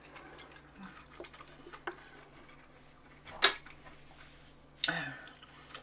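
Utensils clinking and knocking against dishes: a few light clicks, then a sharp clink about three and a half seconds in and another knock about five seconds in.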